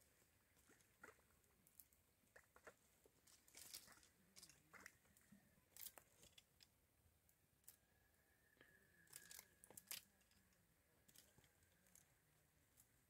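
Near silence with faint, irregular clicks and crackles scattered throughout.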